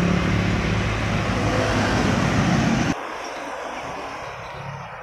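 Road traffic passing close by: engine and tyre noise, cutting off abruptly about three seconds in to a quieter stretch of road noise.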